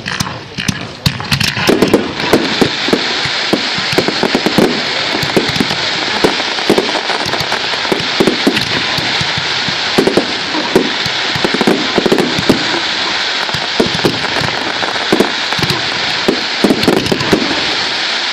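Aerial fireworks going off in a dense barrage: continuous crackling with many sharp bangs and low thumps, building up about two seconds in and staying thick throughout.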